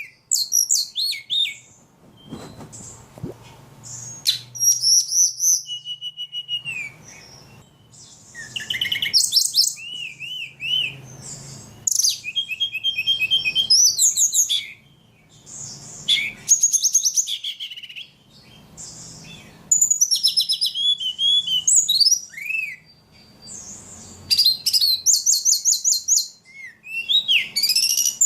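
A ledekan songbird singing loudly and almost without pause: a fast, varied run of high whistles, trills and chirps, broken only by short gaps, the full-song 'gacor' state that keepers prize.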